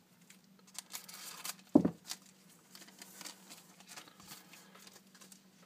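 Scissors cutting open a foil trading-card pack, the wrapper crinkling, then a single thump just before two seconds in and light rustles and ticks as the cards are handled.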